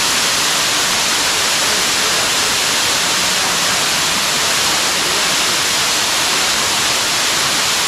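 Waterfall pouring down a narrow rock cleft, heard close up as a loud, steady rush of water.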